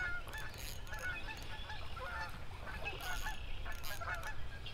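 Geese calling with many short honks, faint and scattered throughout.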